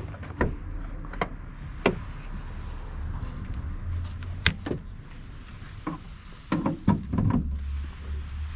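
Car hood being opened: a scattering of sharp clicks and knocks from the release and latch, then a quick run of clunks near the end, over a steady low hum.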